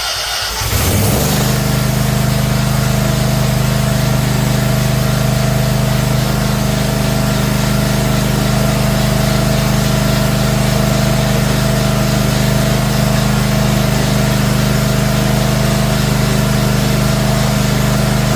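Bad Boy zero-turn mower's engine running steadily just after starting, filling the new oil filter with fresh oil after an oil change. Its pitch rises and settles about a second in, then holds steady.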